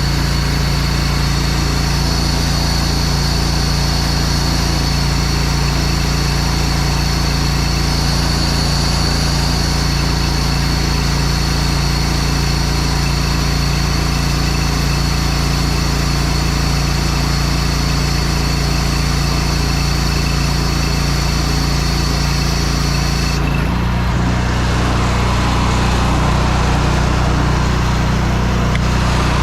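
Pressure washer engine and pump running steadily, with the water flow hissing, as a downstream injector draws soap solution. About 23 seconds in, the high hiss drops away and the engine note shifts.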